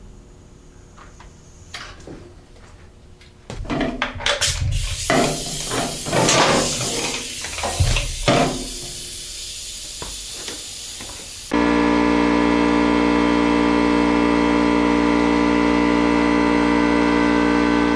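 Irregular knocks and rattles of workshop handling as hoses, a plastic bleeder bottle and tools are set up at a motorcycle. About two-thirds of the way through, a loud, steady hum made of several held tones cuts in suddenly and runs on.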